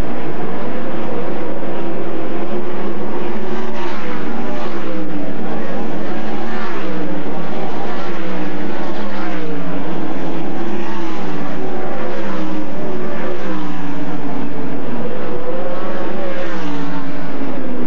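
410 sprint cars' V8 engines at racing speed, loud, the pitch rising and falling over and over as the cars accelerate and back off around the track.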